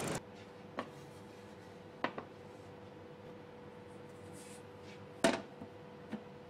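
A few light knocks of wooden parts being handled on a workbench, the loudest about five seconds in as a turntable baseboard is set into its wooden plinth frame, over a faint steady hum.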